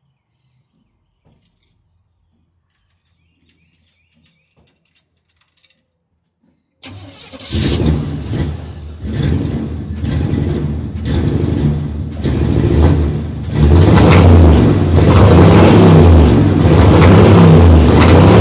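Near silence, then about a third of the way in a pickup truck's engine comes in suddenly and is revved in repeated surges, then held loud at high revs through the second half.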